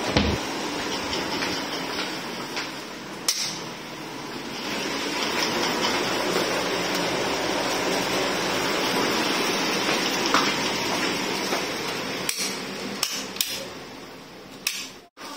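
Steady rushing noise with an occasional sharp click. Near the end it dies away while wall switches are clicked off, several clicks a second or so apart.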